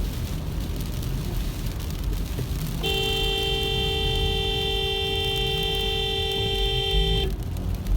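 Car horn held for about four and a half seconds, a steady two-tone blare that starts a few seconds in and cuts off sharply, over the low rumble of the car driving.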